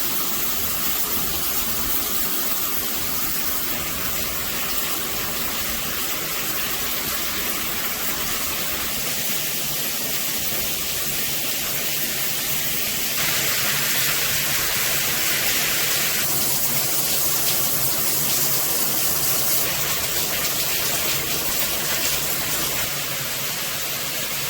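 Water spraying from a shower head, a steady rushing hiss. It gets louder and hissier for about three seconds around the middle.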